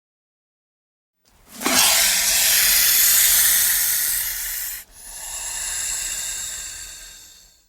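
Snake hissing: two long breathy hisses, the first loud and about three seconds long starting a little over a second in, the second following after a brief break and fading away.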